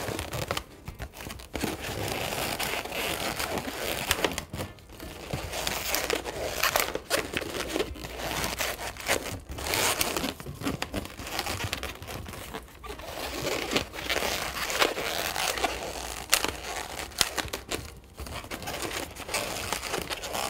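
Latex modelling balloons rubbing and squeaking under the fingers as the petals of a balloon flower are squeezed and kneaded. The sound comes in stretches of a few seconds with short breaks between them.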